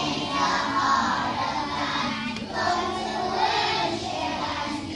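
A group of pre-K children singing together over backing music.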